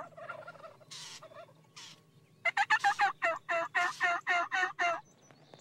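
Wild turkey calling: about halfway through, a loud run of about a dozen quick, evenly spaced notes, each dropping in pitch, lasting a little over two seconds.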